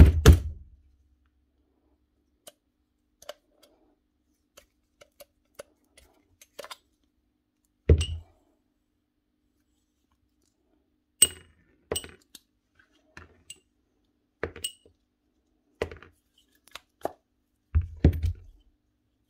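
Steel parts of a dismantled Bosch GBH 8-45 D rotary hammer clinking and knocking as they are handled and set down on a workbench: about ten separate knocks, a few with a short metallic ring, the loudest at the start, about 8 seconds in, and near the end.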